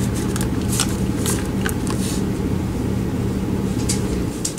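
A steady low mechanical hum, like a motor running, that cuts off near the end, with a few light clicks of handling over it.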